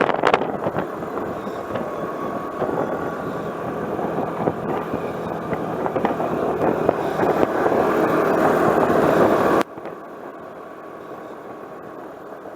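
A vehicle driving, with a dense rush of road and wind noise and a faint steady tone. About ten seconds in it drops suddenly to a much quieter steady hum.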